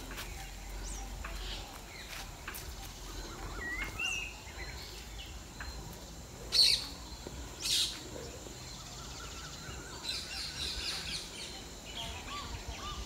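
Birds chirping and calling outdoors, short scattered chirps with a busier run of chirping about ten seconds in. Two louder, sharp sounds about a second apart come about halfway through.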